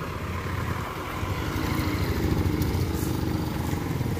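Car and motorcycle engines running on a narrow road as the vehicles ease past at low speed, with the motorcycle engines growing louder as they come closer.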